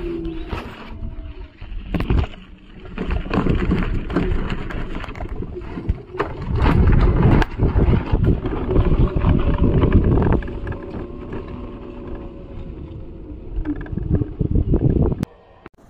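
Wind buffeting and rumbling on the camera microphone, with rubbing and knocks from the camera being handled on the moving scooter. It is loudest in the middle stretch and eases off near the end.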